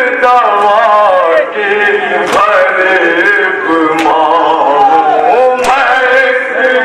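A man singing a noha, a Shia mourning lament, into a microphone, with long wavering held notes that bend up and down in pitch.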